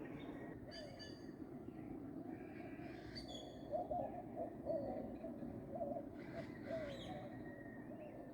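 Birds calling at dawn: a low hooting call repeated in quick short notes from about four seconds in, with higher chirps above it, over a steady low background rumble.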